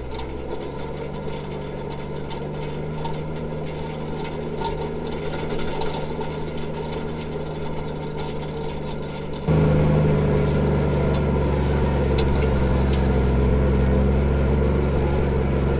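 Straight-piped Nissan TD42 4.2-litre straight-six diesel running steadily while the Patrol is driven, with a low, even drone. About nine and a half seconds in it suddenly turns louder and deeper.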